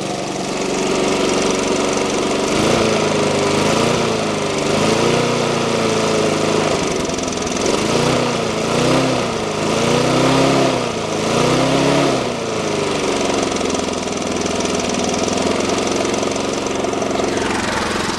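Briggs & Stratton lawnmower engine running, its speed surging up and down about once a second for several seconds, then settling into a steady run. It is running on petrol contaminated with engine oil that leaked into the tank and past the rings.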